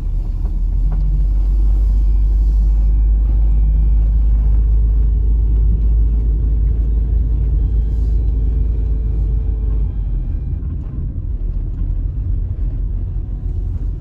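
Car driving slowly, heard from inside the cabin: a steady low rumble of engine and road.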